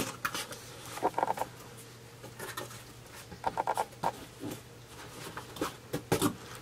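Cardboard box and packaging being handled and rummaged through: irregular rustling, scraping and light knocks, with a couple of short squeaky scrapes.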